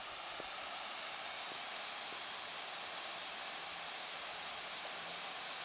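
Steady hiss of outdoor background ambience picked up by the microphone with no distinct event in it, growing a little louder over the first couple of seconds, with a few faint ticks near the start.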